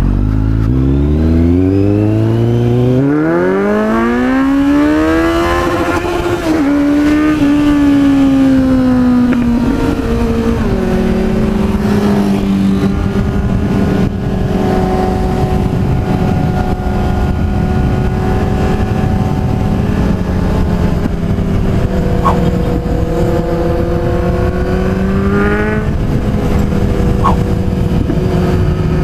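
Road vehicle engine accelerating hard, its pitch climbing steeply over the first few seconds. It then drops back in steps at gear changes and settles to a steady cruise, with one more climb and shift near the end.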